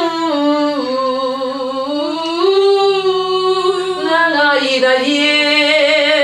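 A woman singing a continuous legato phrase with vibrato. The melody falls, stays low, rises about halfway through, then dips and climbs again near the end.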